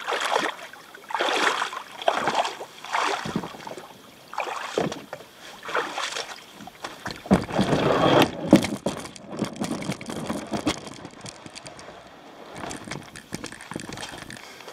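Kayak paddle strokes: the blade dipping and splashing in the water in a steady rhythm of roughly one stroke a second, with a busier run of splashing about halfway through.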